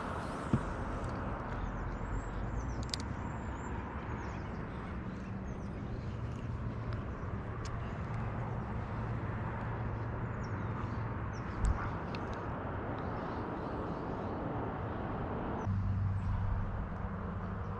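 A boat motor running with a steady low hum, with a few light clicks. Near the end the low hum gets louder.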